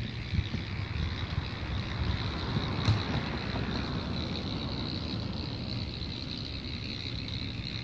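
A motor vehicle passing by outdoors, its noise swelling and fading around the middle, over gusty wind rumble on the microphone and a steady high-pitched hum. A single short tap about three seconds in.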